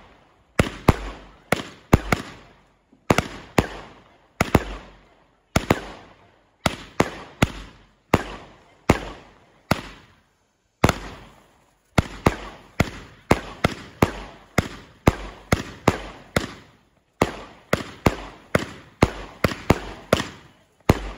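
Lesli Stadium Wave 188-shot compound firework battery firing: a rapid series of sharp bangs, two or three a second, each fading quickly, with a brief lull about ten seconds in.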